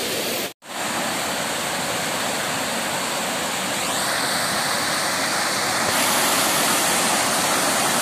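Water pouring over a small weir waterfall, a steady rushing. It cuts out for an instant about half a second in, then resumes.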